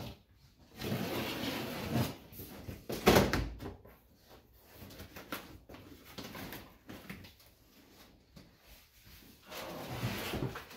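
Cardboard and packing tape of a large shipping box being torn and pulled open by hand, in uneven rustling, ripping spells, with one loud sharp rip about three seconds in.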